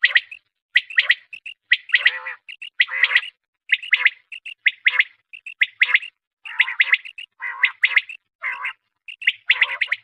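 Common quail calling over and over in short, high chirping phrases, about one or two a second, some with a rougher, lower note beneath, with clean silence between them.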